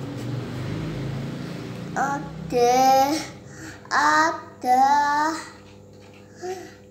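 A young child reading syllables aloud one at a time, each drawn out in a sing-song voice, about four of them after a quieter first two seconds.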